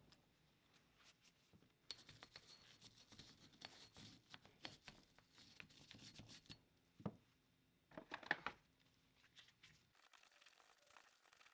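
Faint scratchy scrubbing of a small hand brush against the rusty, greasy inside of an old floor jack's metal cup, followed by a few light knocks and clicks a little past the middle.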